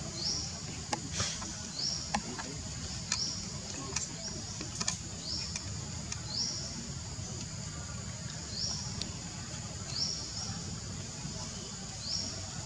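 Outdoor background sound: a steady high hiss with a short, high rising chirp repeating about once every second or so. A few faint clicks come and go.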